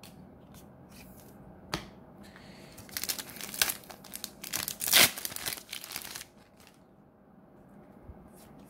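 A Weiss Schwarz booster pack wrapper being torn open and crinkled by hand: a single sharp crackle, then about three seconds of crackling tearing and crumpling, loudest around five seconds in, stopping a little after six seconds.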